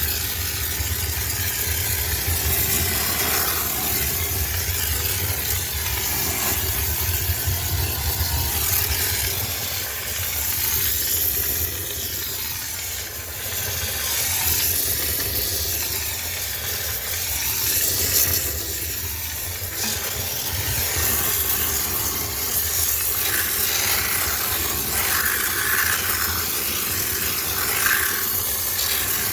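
High-pressure steam cleaner jetting steam to sterilize a sneaker washing machine: a steady hiss over a low hum.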